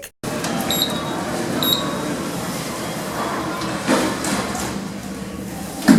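Two short, high electronic beeps about a second apart, typical of lift buttons being pressed, over a steady background hum. A knock follows, and a louder knock comes near the end.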